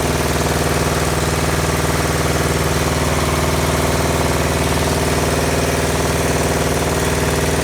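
Washing machine running loud and steady with a fast, even beating drone, the helicopter-like noise of a faulty machine. The noise persists with a new heating element and new shock absorbers fitted.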